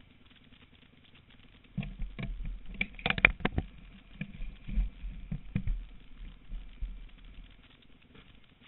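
Irregular knocks and scuffs, the loudest a quick cluster about three seconds in, as a dirt bike is handled on a gravel driveway with its engine off. Heard through a helmet-mounted camera, so bumps against the helmet come through as thuds.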